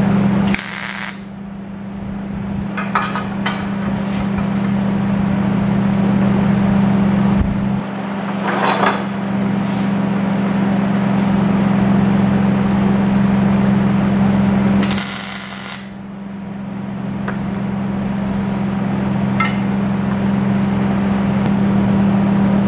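Arc welding on steel railing tubing: a steady crackle over a low hum. It drops off briefly about eight and sixteen seconds in, between welds.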